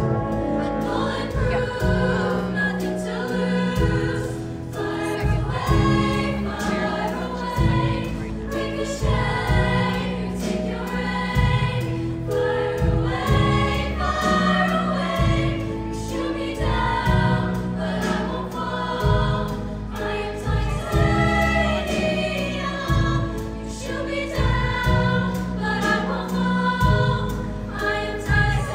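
High school show choir singing in parts over instrumental accompaniment, with held low bass notes changing every second or two.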